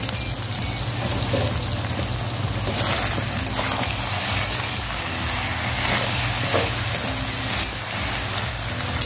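Diced chicken gizzards, liver and vegetables sizzling in a wok as a spatula stirs and scrapes through them, the sizzle swelling about three and six seconds in.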